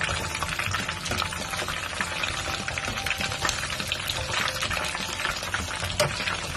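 Shrimp spring rolls frying in hot oil in a pan: a steady, dense sizzle full of fine crackles, with one sharper click about six seconds in.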